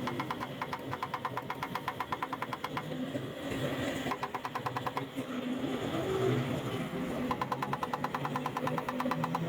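A motor running steadily with a fast, regular ticking, about ten ticks a second; the ticking stops for a few seconds in the middle and starts again near the end.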